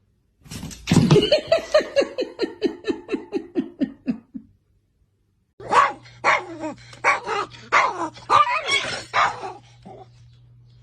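A dog barking: a rapid run of short barks, about six a second, sliding down in pitch for about four seconds. After a short silence come more irregular barks and yelps over a steady low hum.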